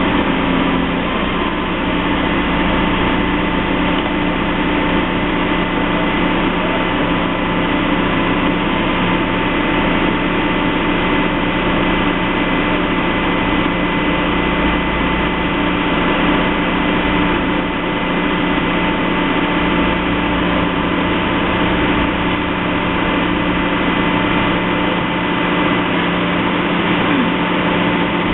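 Heavy construction machinery's engine running steadily, a constant drone with an unchanging pitch and no breaks.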